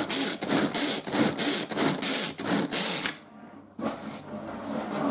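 Manual pull-cord food chopper being pulled over and over, about three pulls a second, its blades whirring through onions, green onions and garlic. The pulling stops about three seconds in, followed by quieter handling of the chopper.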